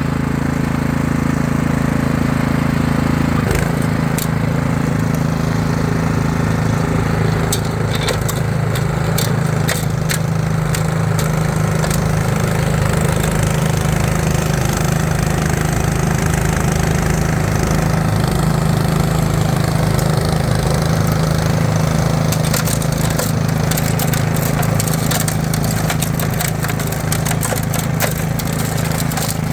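Toro 1028 HD two-stage snowblower's single-cylinder four-stroke engine running steadily under load, clearing heavy, wet snow. Scattered sharp clicks and crackles run over the engine sound and grow thicker near the end.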